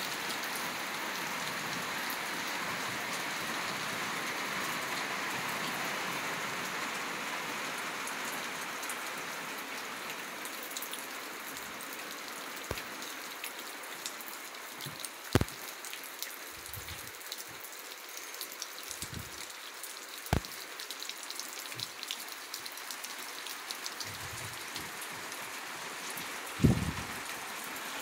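Steady rain falling, a little heavier in the first several seconds, then easing slightly. A few sharp knocks come in the second half, the loudest near the end.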